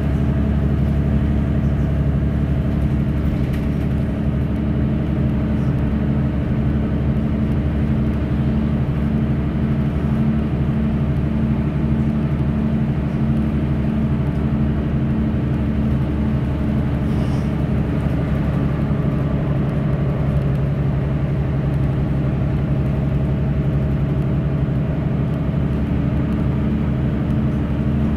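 Mercedes-Benz Citaro facelift (O530) city bus engine running steadily on the move, heard from inside the passenger cabin as a low, even drone over tyre and road noise.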